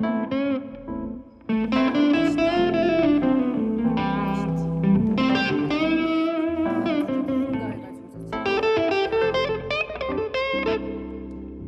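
Live band playing an instrumental break led by an electric guitar solo, with sustained, bending notes over the band.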